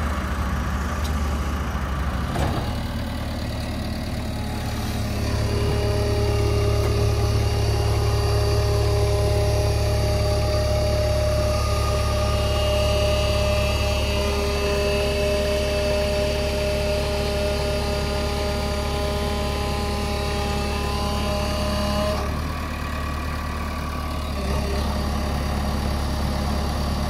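Backhoe loader's diesel engine running. About five seconds in it grows louder, with a steady whine over the rumble, then eases back about twenty-two seconds in.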